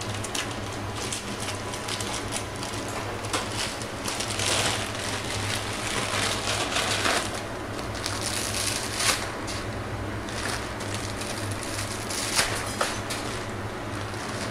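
Water boiling in a steel pot as dry spaghetti is fed in: a steady hiss with a low hum underneath and a few scattered crackles and clicks.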